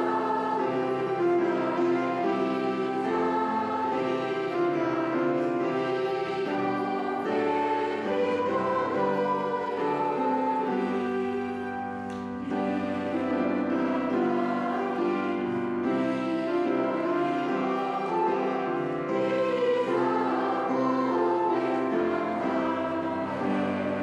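Choir singing a Christmas hymn in sustained, held notes, with a brief break between phrases a little after halfway.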